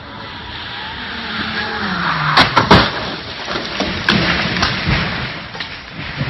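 Car speeding on a wet road, its tyres hissing through the water and its engine note falling, then a cluster of loud bangs about two and a half seconds in as it crashes off the road, with smaller knocks after.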